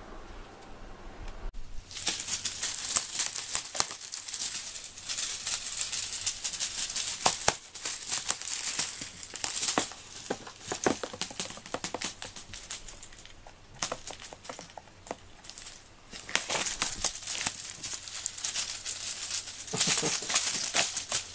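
Cat-teaser toy being shaken and rustled: a dry crinkling rattle that starts abruptly about a second and a half in and comes in bouts of a few seconds with short lulls between them.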